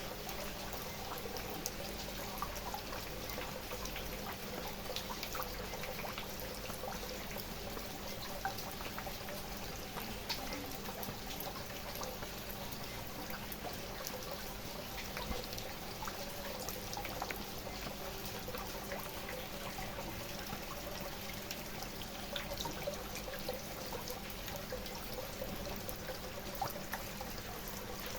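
Steady rain falling, with many separate drop ticks over a constant wash of running, trickling water.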